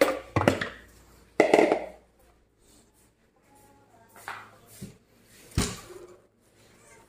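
An aluminium saucepan clanks against a metal dish rack twice in the first two seconds. About five and a half seconds in, a wooden kitchen cabinet door clicks open.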